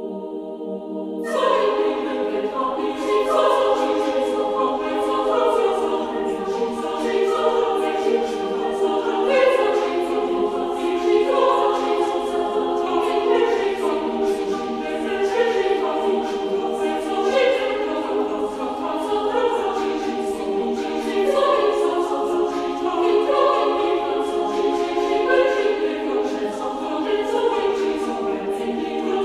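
AI-generated choral music: a choir singing over sustained chords. A held chord opens, and the fuller choir comes in about a second in, pulsing about once a second.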